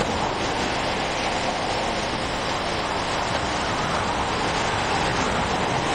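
Interstate traffic passing at speed: a steady rush of tyre and wind noise that swells as vehicles go by near the start and again about four seconds in.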